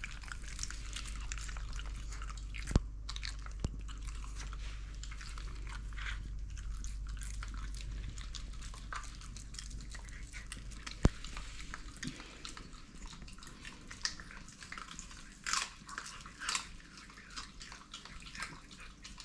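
Two Shiba Inu dogs chewing raw salmon heads and bones, with a steady run of irregular wet crunches and clicks. Two single sharp clicks stand out, about 3 and 11 seconds in.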